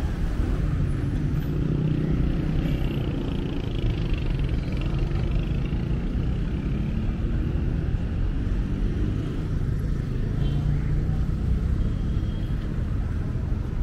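Road traffic: car engines and tyres passing close by, a steady low rumble.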